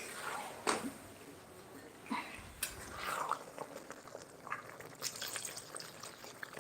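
Scattered light knocks and clinks of kitchen work, a handful over several seconds, with a short splash or pour of liquid about three seconds in.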